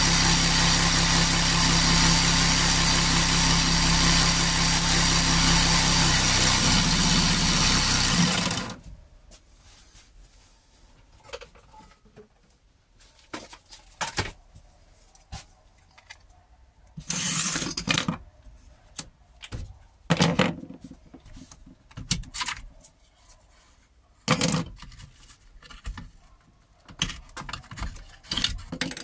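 Parkside 12V cordless reciprocating saw, mounted under a table as a precision saw, running steadily with its blade cutting through a workpiece; its pitch shifts a little before it stops abruptly about nine seconds in. After that, scattered short knocks and rustles of the workpiece and tools being handled on the table.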